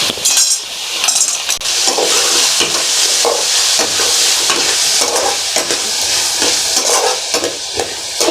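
Raw banana pieces sizzling in hot oil in a pan, with a spatula scraping and stirring them in repeated short strokes.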